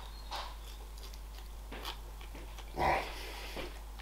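A man eating with a fork: chewing, with small clicks of the fork, and one short, louder voice-like sound about three seconds in.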